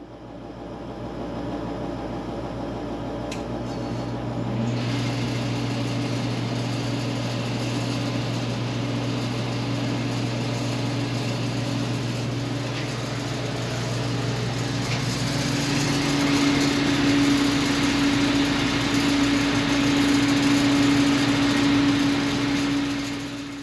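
Forced-air gas garage unit heater starting up and running. A motor hum builds, rises in pitch with a louder rush of air about four to five seconds in, then runs steadily with a buzzing vibration that the owner suspects comes from cracks in the fan blades.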